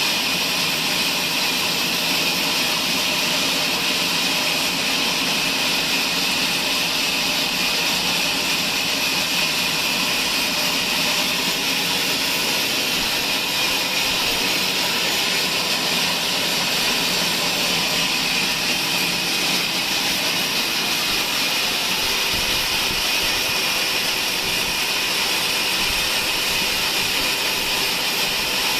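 Sawmill band saw running steadily: a loud, even hiss with steady tones beneath, unchanging throughout.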